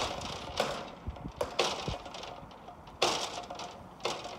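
A run of irregular sharp clinks and knocks, about seven in four seconds, each with a short ringing tail.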